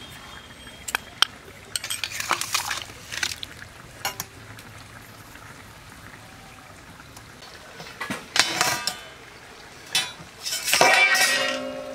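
A steel spatula stirring and scraping in a stainless steel bowl of thick curry: scattered clinks and scrapes, a quieter stretch midway, then louder scrapes near the end with a brief metallic ring.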